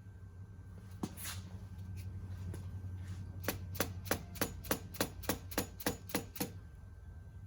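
Light metal tapping on a driveshaft universal joint: a couple of single knocks, then a quick run of about a dozen sharp taps, roughly four a second, that stops suddenly. Typical of tapping a U-joint bearing cup into the yoke with a hammer and punch. A steady low hum runs underneath.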